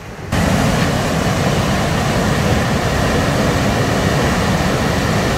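Canal water rushing out through the openings of a sluice gate, a loud steady roar that starts abruptly about a third of a second in.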